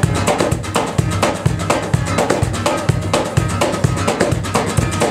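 Acoustic guitar strummed in a steady rhythm, with a cajón slapped by hand keeping the beat underneath, an instrumental passage with no singing.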